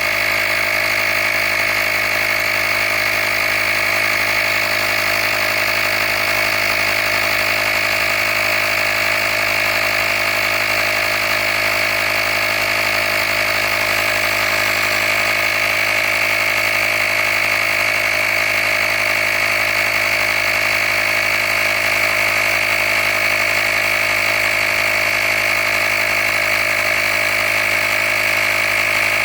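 Handheld air compressor running steadily with a constant high whine, pumping up a flat tire toward its preset 35 psi.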